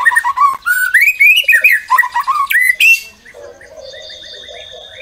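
White-rumped shama singing a loud phrase of quick, rich whistled notes that rise and fall in pitch, lasting about three seconds before breaking off. After it only a faint steady high tone remains.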